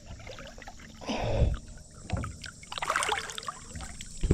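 Water splashing and sloshing beside a boat in short bursts as a large channel catfish is put back in the river, with a sharp knock near the end.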